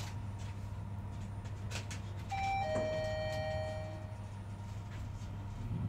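Shanghai Mitsubishi elevator's chime sounding two notes: a short higher tone, then a longer lower tone that fades away, over a steady low hum in the car.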